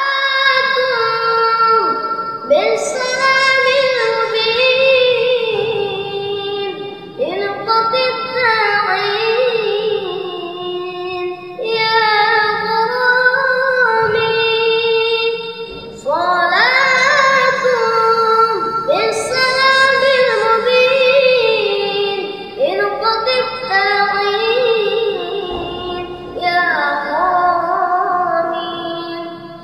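A boy singing a devotional Arabic sholawat solo, in long ornamented phrases that slide and waver in pitch, with brief breaths between them.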